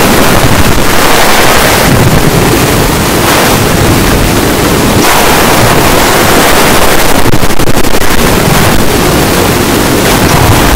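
Loud, steady rushing noise with slow swells, like wind or surf.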